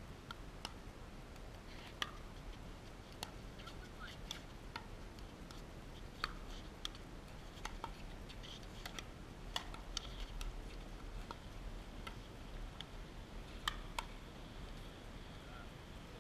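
Pickleball rally: paddles striking a hard plastic pickleball back and forth, heard as a series of sharp pops at irregular intervals, several of them in quick exchanges near the middle.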